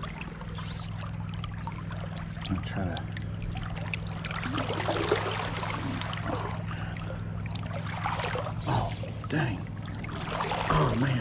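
Creek water sloshing and trickling around a wading angler's legs, over the steady drone of a lawn mower engine running throughout. A few short, louder sounds come near the end.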